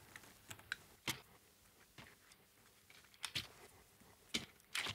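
A few faint, sharp clicks and taps from handling a small circuit board, wires and soldering tools, spaced irregularly, with the strongest ones in the second half.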